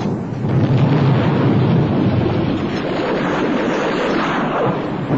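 Battle sounds of a firefight: a loud, continuous rumble of explosions and gunfire.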